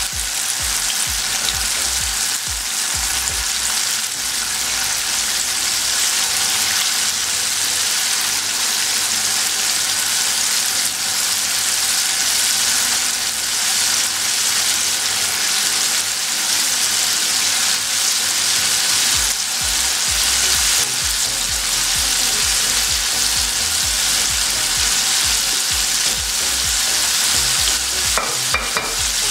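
Flour-coated chicken pieces deep-frying in a pan of hot oil, a steady sizzle. A few faint clicks come near the end.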